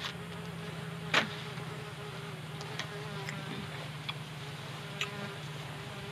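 A bee buzzing steadily close by, with one sharp click about a second in and a few lighter ticks.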